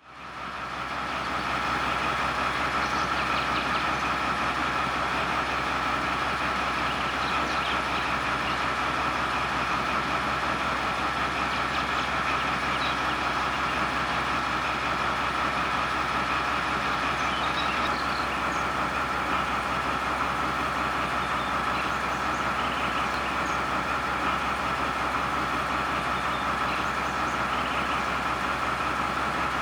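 Steady, unchanging running of machinery: a constant whine over a low hum, holding level without any rise, fall or passing.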